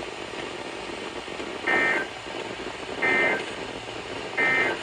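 Emergency Alert System end-of-message data bursts from a NOAA Weather Radio broadcast: three short, shrill warbling bursts of digital tones, a little over a second apart. They sound over steady static hiss from the weak radio signal.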